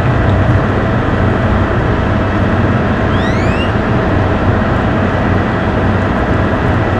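Loud, steady machinery drone with a low hum and a steady tone, from the docked car ferry, mixed with wind noise. A few short rising chirps come about three seconds in.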